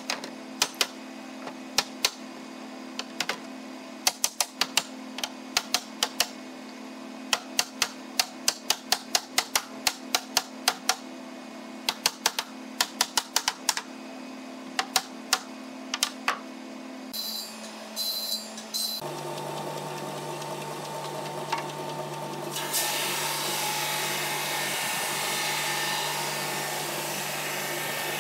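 A long run of sharp wooden knocks and taps, some in quick clusters, over a steady machine hum as a large wooden panel frame is worked and handled. About two-thirds of the way in, a wide-belt sander takes over, running with a steady hum that grows louder with a hiss a few seconds later.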